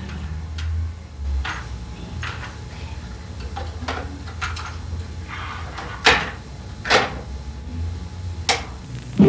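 Small clicks and clacks of a portable radio-cassette player being handled and operated, with three sharper clacks in the second half.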